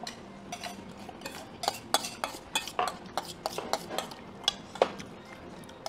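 Metal spoon and chopsticks clinking and scraping against stainless steel bowls while mixing and eating bibim noodles: a string of irregular light clinks, the sharpest a little before the end.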